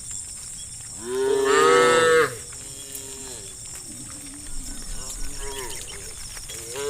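Cow mooing: one loud, long moo about a second in, followed by several quieter, shorter moos, and another moo starting at the very end.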